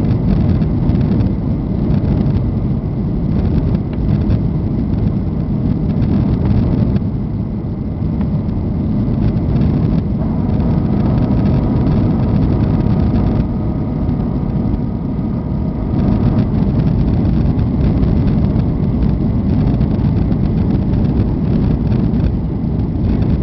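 Steady low roar of a jet airliner's cabin during descent on approach to landing: engine and airflow noise heard from a window seat beside the wing. A faint whine joins in for a few seconds in the middle.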